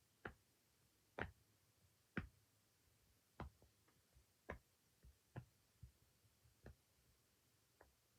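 Silicone pop-it fidget toy bubbles being pressed one at a time: a dozen or so short, soft pops at an uneven pace, about one every half second to a second.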